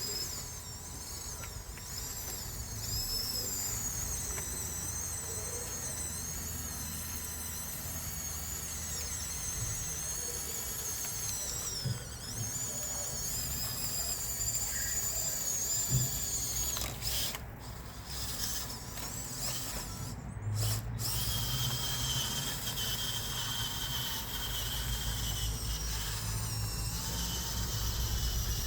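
Electric drive motors and gearboxes of a Huina 1554 RC bulldozer whining at a high pitch, the pitch wavering up and down as it drives and pushes. In the last few seconds the whine settles into a steadier, lower tone.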